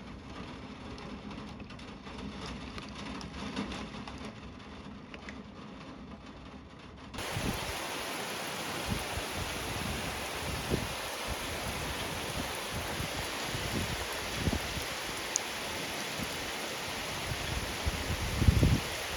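Fainter, duller background for the first seven seconds. Then a steady hiss of rain starts suddenly, with scattered low thuds and rumbles under it, the loudest near the end, during a thunderstorm.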